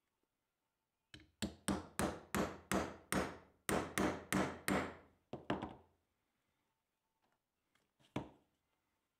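Mallet striking a four-prong leather stitching chisel, driving it through sheath leather laid on a wooden block to punch stitch holes. A quick run of about a dozen sharp knocks, about three a second, then a single knock near the end.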